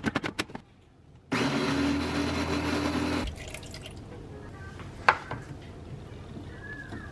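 Nutribaby baby food maker's blender running for about two seconds as it purees broccoli, then stopping abruptly. A few quick clicks come before it starts, and there is a sharp tap about five seconds in.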